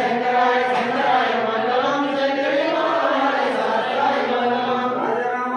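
Voices chanting a Hindu devotional hymn, sung continuously on drawn-out, slowly bending notes.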